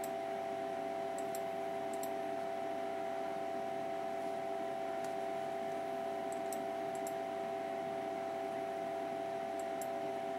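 Steady computer hum made of a few fixed tones over a hiss, with a dozen faint, sharp mouse clicks scattered through it.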